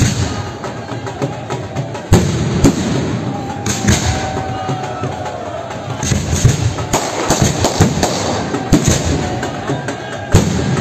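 Aerial firework shells bursting overhead: about a dozen sharp bangs at irregular intervals over a continuous crackle and rumble.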